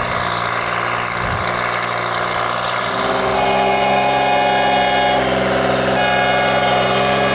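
Engine of a small Plymouth narrow-gauge diesel locomotive running steadily as it pushes a snow plow along the track. About three seconds in, the note changes to a steadier, more tonal engine hum.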